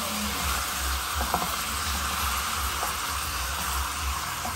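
Pieces of chicken sizzling in hot oil with onion and garlic in a pot as they are stirred with a silicone spoon, a steady frying hiss with a few faint taps; the chicken is being browned at the start of a stew.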